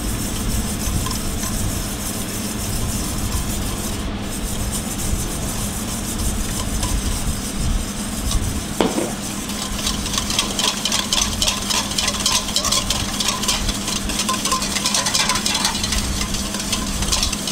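Wire whisk beating a liquid dressing in a stainless steel mixing bowl, with a quick scraping and ticking against the metal that gets faster and louder about ten seconds in. The truffle oil is being whisked in little by little to blend the dressing. A steady low hum runs underneath.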